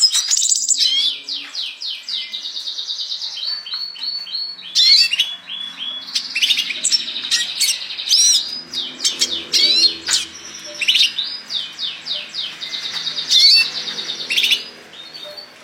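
Red siskin singing vigorously: a fast, continuous twittering song of rapid chirps, trills and sweeping notes, trailing off near the end.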